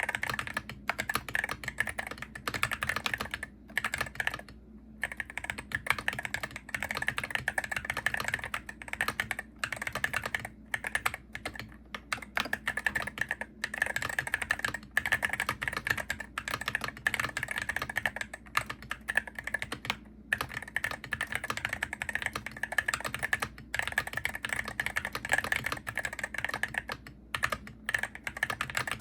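Typing on a Hero68HE gaming keyboard: a steady run of fast key clacks, broken by short pauses every few seconds.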